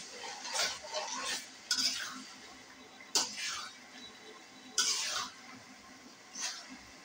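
A metal spoon stirring chilli pickle in oil in a metal karahi, in irregular scraping strokes with clinks against the pan; the sharpest clink comes about three seconds in and another near five seconds.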